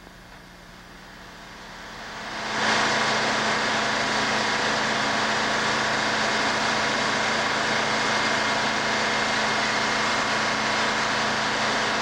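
Circular sawmill running with a steady machine noise, the spinning saw and its power unit, with no log being cut. It starts fainter and comes up to full loudness about two and a half seconds in.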